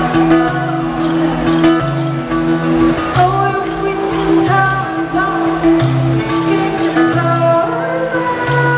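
Live band music with a woman singing over guitar and a repeating bass line, recorded from the crowd on a small camcorder with poor, muddy sound.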